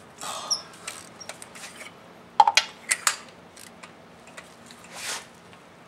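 Spark plug socket on an extension and socket wrench clinking and clicking as spark plugs are loosened from the engine's plug wells. Scattered sharp metal clicks, a few louder ones about two and a half to three seconds in, with short rasping scrapes near the start and about five seconds in.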